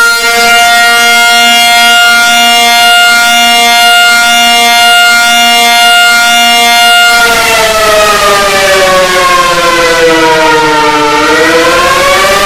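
Loud EAS-style alarm siren: several tones sound together, held steady for about seven seconds with a lower tone pulsing. Then the whole sound glides down in pitch over about four seconds and starts rising again near the end.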